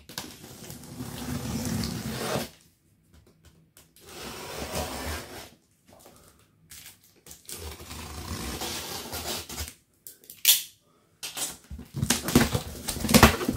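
A knife slitting the packing tape along the seams of a large cardboard box, in three long scraping strokes with pauses between them. Near the end the tape and cardboard flaps crackle and rustle as they are pulled apart.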